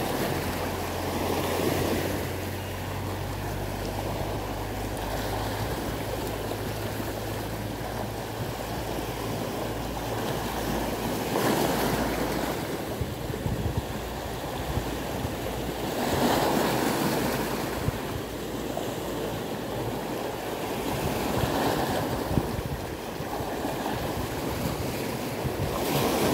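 Small sea waves breaking and washing over the rocks of a stony shore, surging every few seconds.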